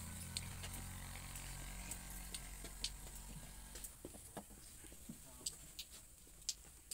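Faint scattered crackles and ticks from a small wood fire under a griddle, over a low hum that fades out about three and a half seconds in.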